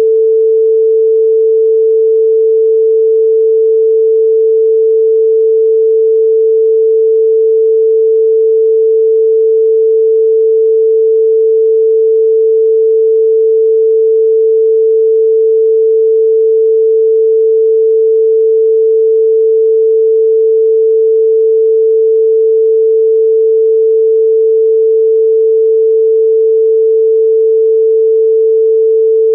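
A single pure electronic sine tone a little below 500 Hz, held steady and unbroken at a constant loud level: a Rife frequency tone.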